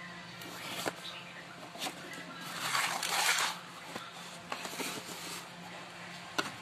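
Small cardboard box being opened by hand: the flaps are pulled apart with cardboard scraping and rustling, loudest in a burst about two and a half to three and a half seconds in, with a few light knocks before it.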